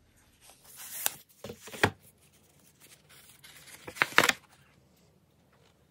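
Paper rustling and crinkling as a folded paper instruction leaflet is handled and opened. There are brief rustles about one and two seconds in, and the loudest crinkle comes around four seconds in.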